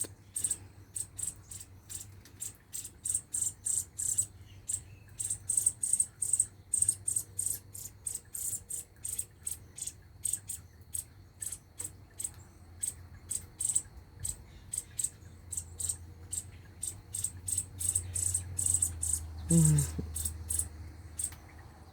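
A young bird begging for food: a long run of short, high-pitched chirps, about two or three a second, with a brief lower call about 19 seconds in.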